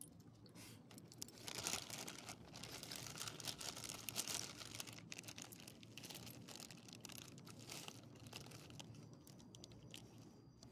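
Irregular crinkling and crackling, loudest about two and four seconds in.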